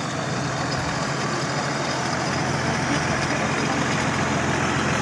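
Engines of modified off-road 4x4 competition vehicles idling with a steady low rumble.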